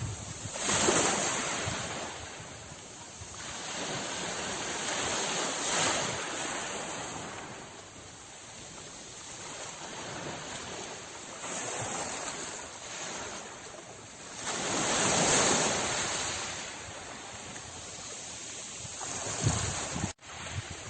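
Sea waves breaking and washing in, swelling and ebbing in surges every few seconds. The sound briefly cuts out near the end.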